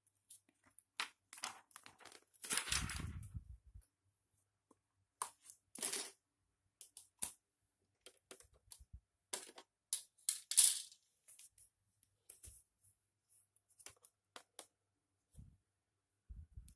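Scattered clicks, taps and short rustles of a laptop LCD panel being handled and set into the laptop's lid, with a longer rustle about three seconds in.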